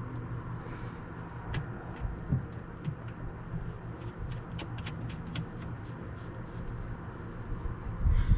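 Small clicks and taps of a water-hose fitting being handled and screwed onto its connection by hand, over a steady low hum.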